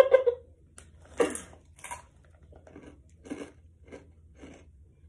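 A brief laugh through a hand at the start, then someone chewing a crunchy snack, with a series of short crunches about half a second apart.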